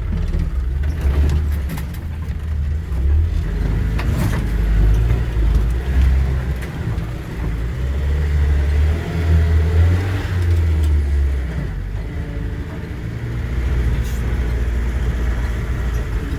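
Off-road vehicle's engine running low and heavy, its revs rising and falling as it drives, with a few knocks.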